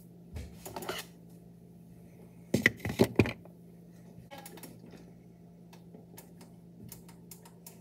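Kitchen clatter of dishes and utensils being handled, with a short burst of loud knocks and clanks about two and a half to three and a half seconds in and light quick tapping near the end, over a faint steady low hum.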